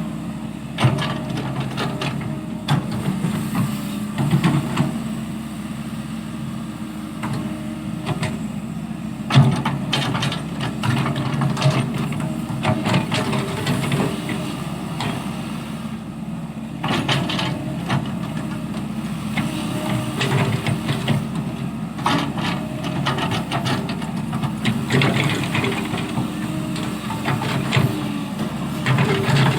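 Excavator's diesel engine running steadily, with repeated knocks, clanks and scrapes of the machine working throughout.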